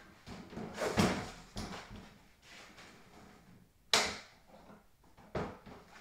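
Knocks and clunks of a rack section being set on top of another and shifted into place: a heavy clunk about a second in, a sharp knock about four seconds in, and another clunk near the end.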